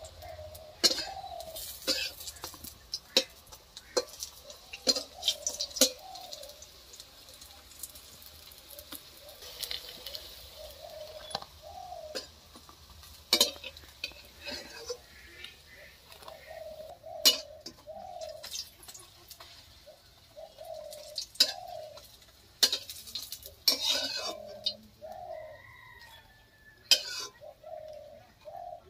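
Metal spatula clinking and scraping against a steel kadai and a terracotta plate as fritters are turned in hot oil and lifted out, over a faint frying sizzle. A bird calls again and again in short notes throughout.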